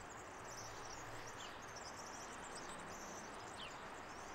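Faint background ambience: a steady soft hiss with small, high-pitched chirps repeating throughout.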